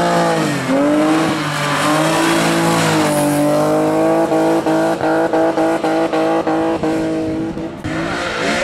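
Race car engines held at high revs through a hairpin. The engine note dips briefly near the start, then stays high and steady, with a series of sharp cracks over it for a few seconds. The sound changes abruptly near the end.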